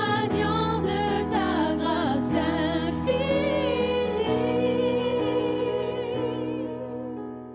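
A worship song: a voice singing with vibrato over sustained accompaniment, holding a long final note that fades out near the end.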